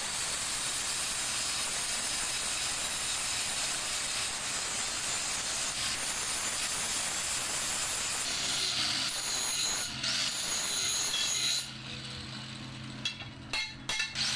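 Grinder sharpening a metal edge: a steady, hissing grind of blade against the spinning wheel. About eleven and a half seconds in the grinding stops, leaving the grinder running more quietly with a few sharp clicks near the end.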